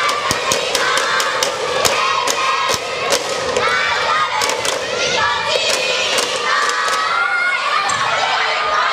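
A crowd of schoolchildren shouting and cheering together, with many sharp smacks cutting through, coming quickly one after another near the start.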